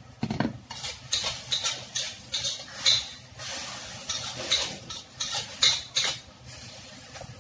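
Metal spatula scraping and knocking against a wok while stir-frying, in quick irregular strokes that stop about a second before the end.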